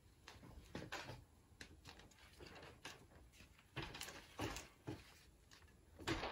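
Faint rustling of parchment paper with light knocks and clicks as it is hung on a light stand, in a few short scattered spells, the loudest near the end.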